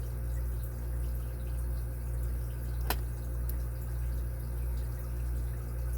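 Steady low background hum, and a single sharp click about three seconds in, as lock-picking tools go into a five-pin dimple bike lock.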